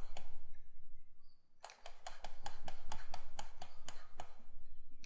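A few sharp clicks from the computer mouse and keyboard, a pause of about a second, then a quick run of about a dozen clicks at roughly five a second, over a low steady hum.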